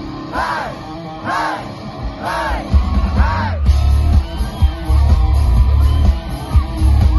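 Live rock band playing loudly. A rising-and-falling yelled figure repeats about once a second over light backing, then heavy bass and the full band come in about three seconds in.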